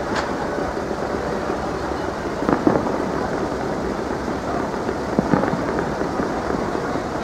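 Aerial fireworks bursting in a continuous dense crackle and rumble. A sharp bang comes right at the start, and louder bangs come about two and a half and five seconds in.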